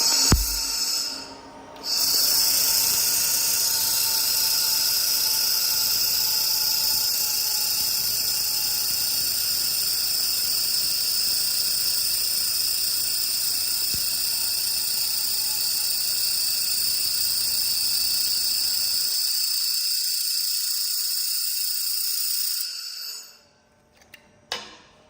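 Handheld 2500 W laser welder with wire feed running a long weld on thick steel: a loud, steady high-pitched hiss that breaks off briefly about a second in, then runs unbroken for some twenty seconds before stopping.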